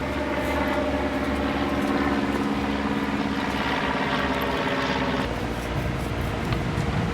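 Steady engine hum made of several held tones, which stops abruptly about five seconds in.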